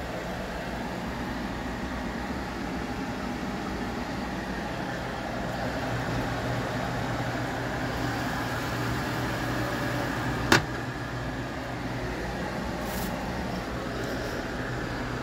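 Steady low mechanical hum with a whooshing hiss over it, and one sharp click about ten and a half seconds in.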